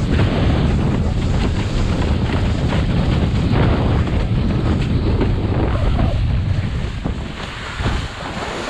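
Heavy wind buffeting on the GoPro's microphone over the rush and splash of water under a windsurf board sailing at speed; the rumble eases a little near the end.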